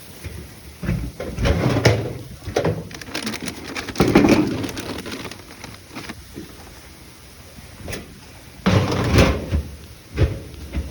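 Irregular rustling and knocking handling noises, loudest in clusters about two, four and nine seconds in.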